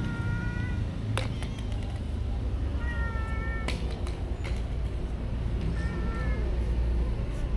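A stray cat meowing three times, each call short, under a second. A few brief sharp clicks and a steady low background rumble come in between the calls.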